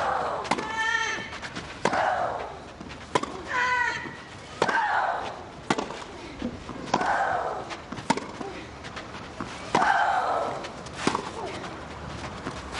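Tennis rally: racket strikes on the ball come about every one to one and a half seconds. Several shots carry a player's high-pitched shriek.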